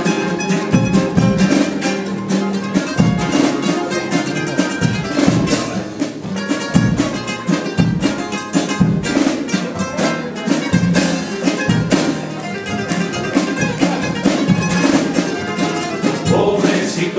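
Guitars strumming and picking with percussion: the instrumental introduction to a carnival comparsa's pasodoble, before the voices come in.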